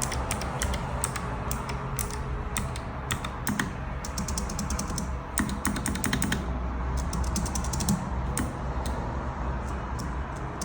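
Typing on a NuPhy Air60 low-profile mechanical keyboard with clicky Gateron Blue low-profile switches: a quick, irregular run of sharp key clicks.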